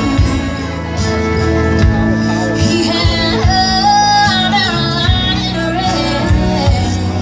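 Live country band playing through the PA: drums, bass, keyboard and guitars, with a woman singing lead over them.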